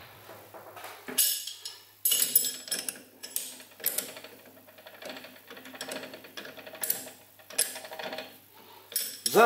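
Three-jaw lathe chuck being adjusted with a steel chuck key: a run of irregular metallic clicks and clanks, some with a short ringing, as the jaws are worked onto a part before clamping.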